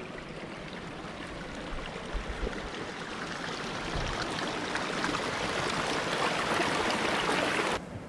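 Steady hiss of rushing water that grows louder and cuts off abruptly near the end.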